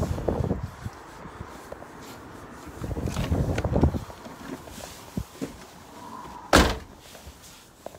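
Rustling and bumping while stepping up into a caravan, then a door shutting with a single sharp bang about six and a half seconds in.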